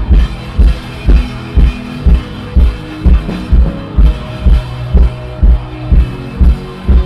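Worship band music: a kick drum beats steadily about twice a second under sustained chords.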